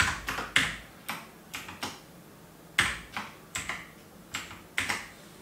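Typing on a computer keyboard: about fifteen sharp key clicks in an uneven rhythm, with a short pause about two seconds in.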